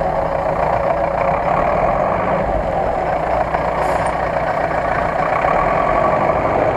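GAZ-66 off-road truck's engine running steadily under load as the truck crawls forward through deep mud ruts.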